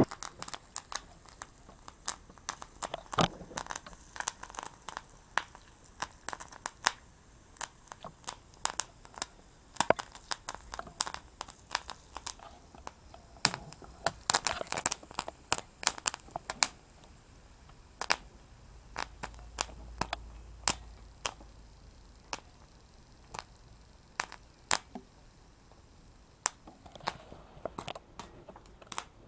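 Popcorn kernels popping one at a time in a hot steel pan, sharp pops at irregular intervals with a few quick clusters partway through.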